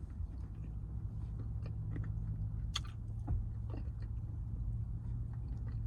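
Close-up eating sounds: chewing, with scattered soft mouth clicks and smacks, over a steady low hum.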